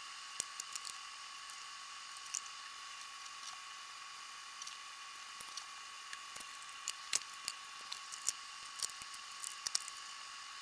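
Faint steady hiss with a thin high tone through it, broken by scattered light clicks and ticks. This is the sound of sped-up footage of a phone being handled.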